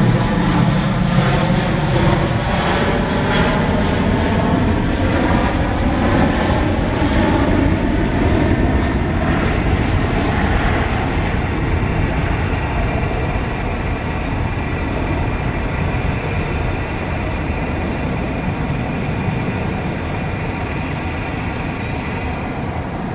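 Airbus A321-231's twin IAE V2500 turbofan engines at takeoff power: a jet roar that is loudest at the start and slowly fades as the aircraft climbs away. During the first half it has a whooshing sweep that falls in pitch.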